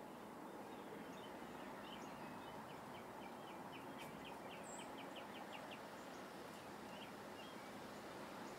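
Quiet outdoor ambience with steady background noise and a bird calling: a run of about a dozen short, quick notes, roughly five a second, a few seconds in, among scattered short chirps.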